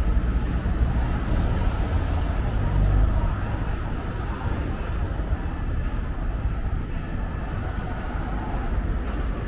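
Steady city road traffic: cars driving past close by, with engine rumble and tyre noise, a little louder for the first three seconds.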